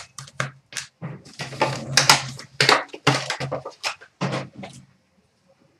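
Packaging crinkling and tearing as a trading-card box and its packs are opened, a rapid, irregular series of crackles that stops a second before the end.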